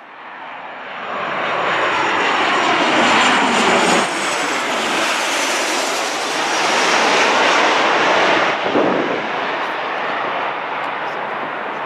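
Boeing 737 jet engines passing low overhead on approach: a loud rushing engine noise with a thin high whine that slowly falls in pitch. The sound changes abruptly twice, at about four seconds and again near nine, as one clip cuts to the next.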